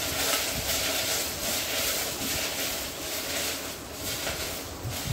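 Washed drumstick (moringa) leaves sizzling as they fry in a little oil in a steel pan, the hiss swelling and easing about twice a second as a spatula stirs them. The sizzle is the water from the freshly washed leaves cooking off as they are fried dry.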